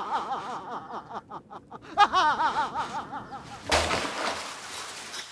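A man cackling with wild, maniacal laughter in quick pulsing bursts that trail off, then break out again about two seconds in. Near the end a sudden rasping, scraping noise starts.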